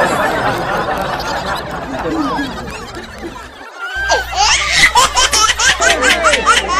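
A large crowd of spectators chattering and calling out; about four seconds in, loud laughter takes over, with many quick high shrieks.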